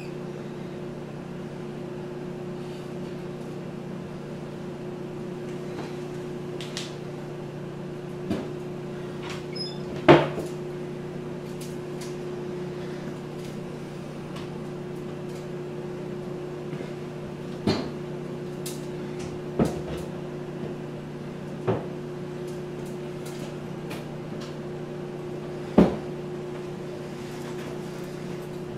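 Microwave oven running with a steady hum while heating sauce. About six sharp knocks break in now and then, the loudest about ten seconds in and again near the end.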